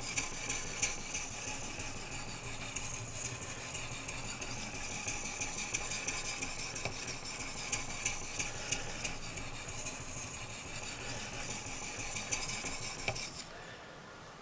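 Oil-lubricated 1000-grit Grinderman sharpening stone, soaked in ceresin, being stroked back and forth along a hard REX 121 steel knife blade on a guided sharpening system. It makes a steady scraping of stone on steel that stops near the end.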